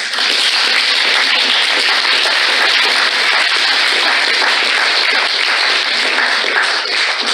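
Theatre audience applauding: dense, steady clapping from many hands that starts abruptly and holds evenly, easing a little near the end.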